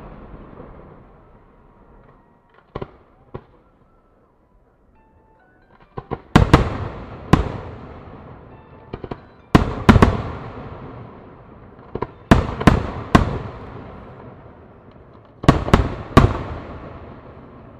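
Aerial firework shells bursting: two small pops, a short lull, then about a dozen loud booms, mostly in quick groups of two or three, each trailing off in a long echoing rumble.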